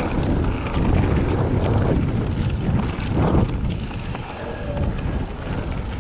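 Wind buffeting the microphone on a fast mountain bike descent, with tyres rolling over gravel and loose rocks and irregular knocks and rattles from the bike.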